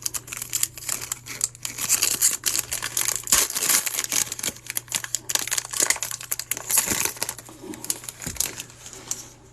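Foil wrapper of a baseball trading-card pack crinkling and crackling as it is torn open and handled, a dense irregular run of crackles throughout.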